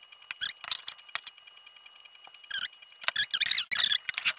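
Aluminium tripod legs clicking and rattling as they are handled and spread apart, in irregular bursts that are busiest near the end, over a faint steady high whine.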